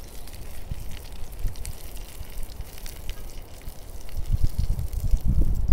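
Wind buffeting the microphone as a low, fluttering rush that swells near the end, with faint clicks and scrapes of a plastic spoon against a pan as Brussels sprouts are scooped into a bowl.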